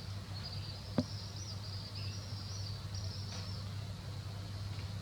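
Background ambience: a high, wavering chirring over a steady low hum, with one sharp click about a second in.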